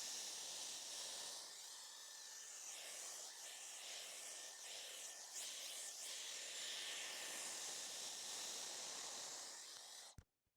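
Handheld hair dryer blowing steadily, a rushing of air over a faint motor whine, which shifts slightly as it moves through the hair; it is switched off and stops abruptly near the end.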